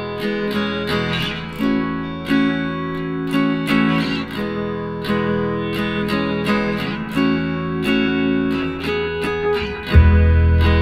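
Background music: a plucked acoustic guitar playing a steady run of notes, with a deeper bass part coming in near the end.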